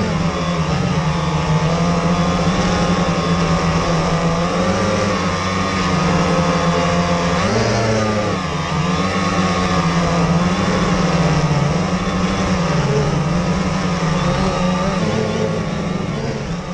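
Quadcopter's electric motors and propellers buzzing loudly, the pitch rising and falling over and over.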